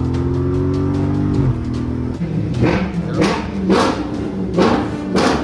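Dodge Charger Scat Pack's 392 HEMI V8 running steadily under light acceleration, heard from inside the cabin, cut off abruptly about a second and a half in. After that comes a music beat with sharp hits about every half second.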